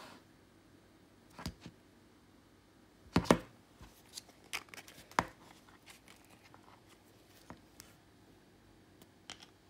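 Scattered quiet clicks, knocks and crinkles from hands handling a clear plastic slime tub and its lid, with the orange butter slime inside; the loudest is a double knock about three seconds in.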